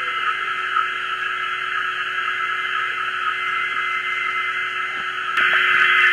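Shortwave receiver audio from a Yaesu FRG-7 tuned to an HF weather-fax transmission. It is a steady band of hiss with a faint steady tone, the fax signal lying weak, well in the noise, because propagation is very marginal. About five seconds in there is a click and the hiss gets louder.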